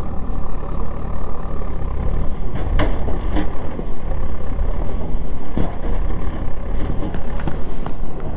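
KTM RC 200 single-cylinder motorcycle running, heard as a steady low rumble mixed with wind on the microphone, with a few sharp knocks.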